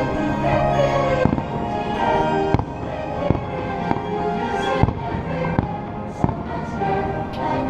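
Fireworks shells bursting, a sharp boom about every second, over the show's music soundtrack.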